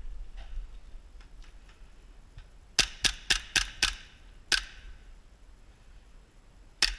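Airsoft guns firing: a quick string of five sharp shots about a quarter second apart, one more shot a moment later, then a single shot near the end.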